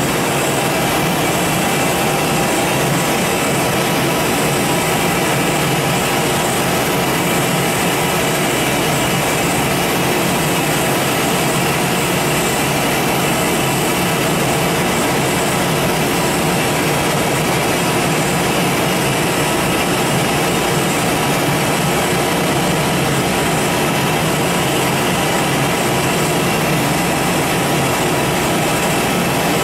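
Giddings & Lewis 84 CNC vertical turning lathe running with its large table spinning empty: a steady machine drone with several steady whining tones, unchanging throughout.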